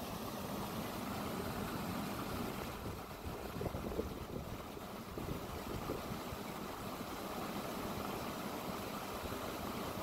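Water gushing from several large pump discharge pipes into flooded ground, a steady churning rush.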